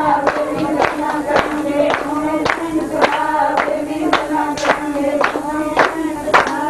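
Voices singing a sustained melody with hand clapping on a steady beat, about two claps a second.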